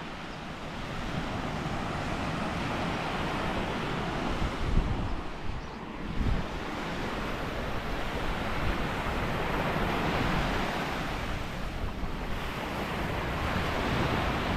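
Surf breaking and washing up a sandy shore, swelling and easing every few seconds, with wind buffeting the microphone.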